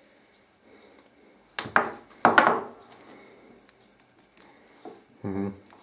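The spring clip on the Stihl EDT 9 tachometer's sensor cable being worked open and shut by hand, with cable handling: two short, loud snapping noises about half a second apart, a little under two seconds in, over quiet rubbing.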